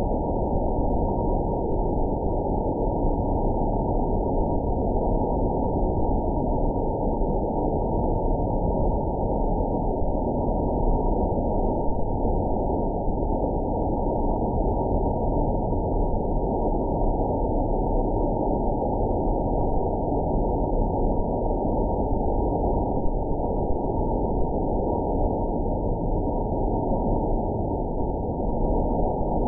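Steady, muffled hiss with no separate cracks or pops and nothing above the low-middle range: the spark discharge of a 4-inch Tesla coil arcing continuously, slowed down with the extreme slow-motion footage.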